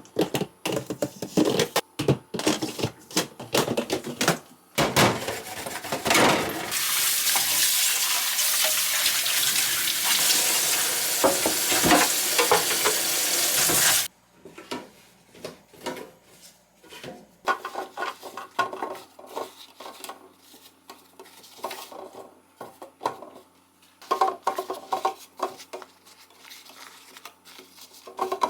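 Dishes, containers and utensils being handled, with clinks and clatters. From about six seconds in, a loud steady hiss runs for about seven seconds and then cuts off suddenly, followed by quieter scattered clinks.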